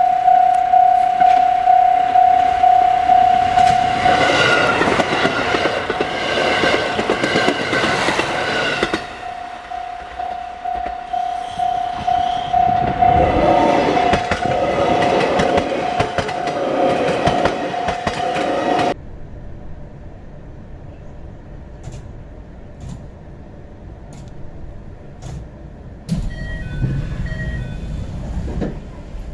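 Level crossing alarm ringing in a rapid, even pulse as a KiHa 183 series diesel express train goes through. The train's horn sounds about four seconds in, and later its engines and wheels rumble and clatter over the rails. The alarm cuts off suddenly about nineteen seconds in, leaving quieter sound with a few faint clicks.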